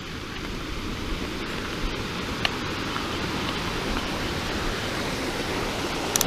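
Steady rushing noise of wind and tyres while riding a mountain bike on a trail, with a few sharp clicks and rattles from the bike, a cluster of them near the end.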